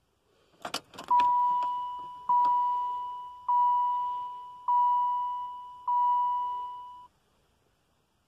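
A few sharp clicks of the ignition key being turned, then the truck's dashboard warning chime sounding five times, about a second apart, each tone fading away. This is the key-on stage of a cold diesel start, with the wait-to-start light lit while the intake air heaters warm.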